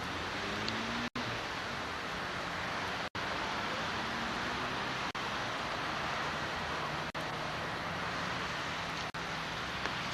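Steady rush of road traffic, the sound cutting out for an instant about every two seconds.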